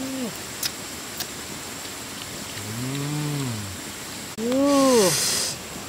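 Two drawn-out hums from people eating, each rising then falling in pitch: a lower man's hum about halfway through, then a louder, higher woman's hum about a second later with a breathy hiss over it.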